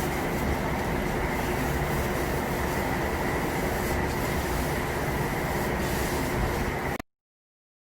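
Steady, even machine or air noise with a faint steady whine in it, cutting off abruptly about seven seconds in.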